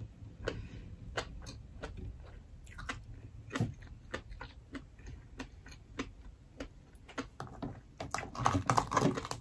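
Close-miked chewing of a mouthful of rice, with sparse, irregular wet mouth clicks and smacks. From about eight seconds in come denser, louder clicks and crackles as the shell of a whole boiled lobster is gripped and pried apart.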